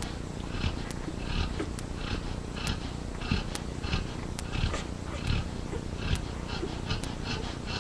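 Yellow Labrador puppies suckling, with quick wet sucking pulses about twice a second and small clicks, over the low rumbling snore of their sleeping mother.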